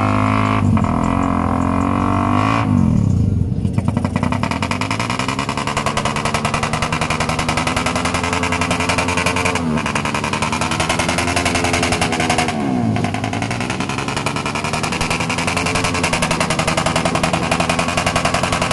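Suzuki Raider 150 underbone's single-cylinder four-stroke engine revved while the bike stands still. It is held at high revs, and the pitch dips and climbs back three times.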